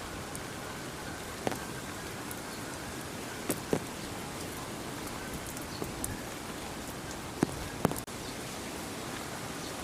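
A steady, even hiss of outdoor background noise, with a handful of sharp taps scattered through it, two of them close together about three and a half seconds in and two more near the end.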